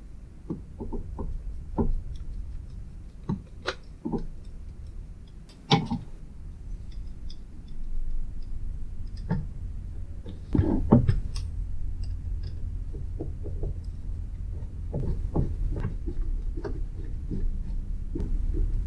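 Scattered light knocks and clicks of objects being handled, over a low steady rumble.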